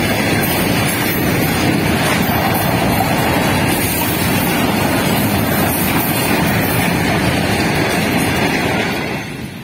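Indian Railways freight train of covered goods wagons rolling past, a loud steady rumble and clatter of wheels on the rails. It falls away about nine seconds in as the last wagon goes by.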